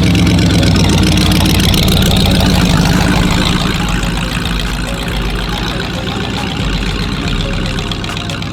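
A hot rod's engine idling loudly with a rapid, even firing pulse, easing slightly a few seconds in.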